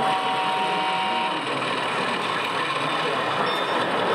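Steady background hubbub of a crowded exhibition hall: a wash of indistinct voices and general noise. Two faint steady tones sound together and stop about a second in.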